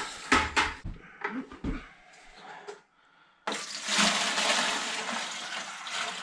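A few knocks and clunks as the trap bucket is handled, then about three and a half seconds in water starts pouring steadily into a plastic bucket, filling the drowning bath of a bucket mouse trap.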